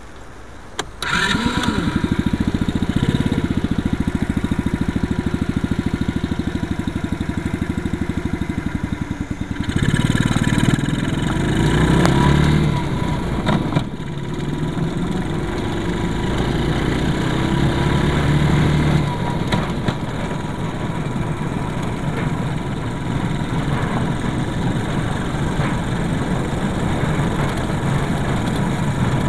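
A mini jeep's small engine starts about a second in and then keeps running steadily. It runs louder from about ten to fourteen seconds, then settles to a steady drone while the jeep drives over an unpaved gravel track that shakes the vehicle.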